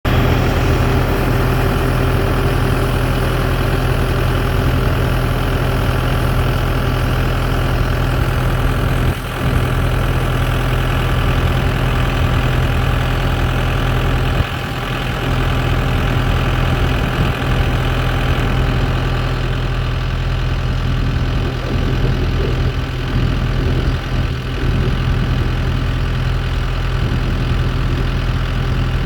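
Case IH Puma tractor engine running steadily, with a constant low drone. The sound dips briefly twice, about 9 and 14 seconds in.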